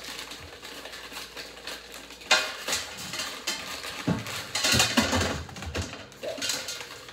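Kitchen clatter: pots, dishes and utensils being handled, with several sharp knocks and rattles, the loudest about two seconds in.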